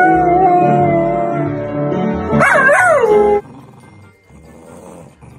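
A golden retriever howling: one long held howl that wavers up and down near its end and cuts off about three and a half seconds in.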